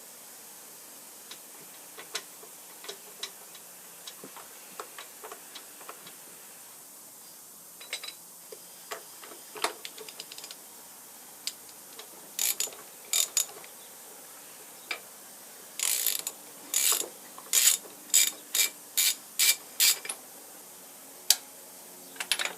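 Metal clicks and clinks of hand tools working on cast-iron machine parts during disassembly: scattered light clicks, then a quick run of about eight louder short rasping strokes, roughly two a second, past the middle, and one sharp click near the end.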